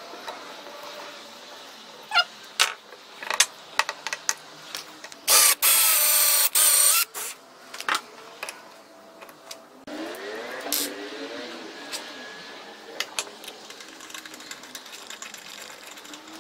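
Hand work with a steel machine vise and wooden blocks: scattered clicks and knocks, and near the middle a loud, noisy whir lasting about two seconds. After that come softer squeaks, scrapes and light ticks of a screwdriver working a screw in a wooden block.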